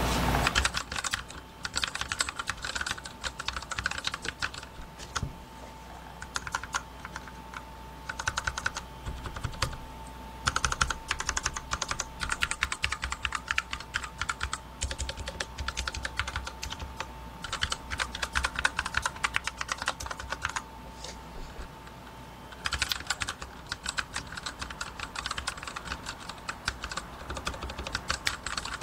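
Typing on a Monstargear Ninja 71K5 custom mechanical keyboard: fast runs of key clacks broken by short pauses, with a quieter lull of about two seconds roughly two-thirds of the way through.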